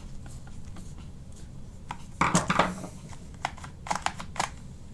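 Mazda 3 door latch and lock module being worked by hand: a loud clatter of plastic and metal parts about two seconds in, then several sharp clicks as the mechanism snaps over, the latch now working after repair.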